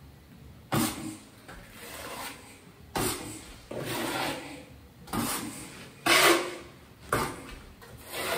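Trowel scraping back and forth across Schluter Kerdi waterproofing membrane set in thinset, about seven strokes, each starting sharply and trailing off, as the membrane is pressed flat to work out air bubbles and excess cement.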